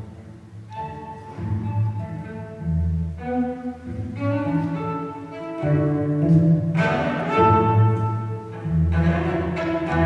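Cello music: a melody of held, bowed notes over a low bass note that recurs about every second and a half.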